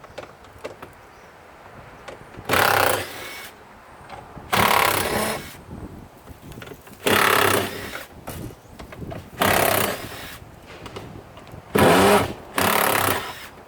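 Power tool with a socket running in six short bursts, a few seconds apart, as bolts are worked loose on a washing machine being stripped for scrap.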